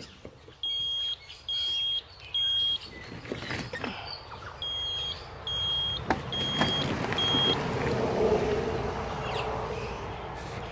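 A vehicle's reversing beeper sounding seven short, identical high beeps at one steady pitch, three then four after a short gap, as it backs up. From about six seconds in, the low rumble of the vehicle moving builds and holds.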